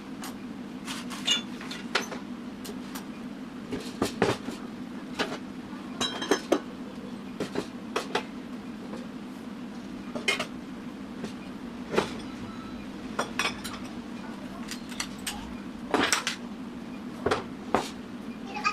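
Small coffee roasting machine running: a steady motor hum under irregular metallic clinks and knocks.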